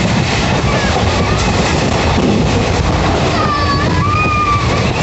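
Express passenger train running at speed, about 110 km/h, heard from inside the coach: a loud, steady rush of air and rumble of wheels on the rails.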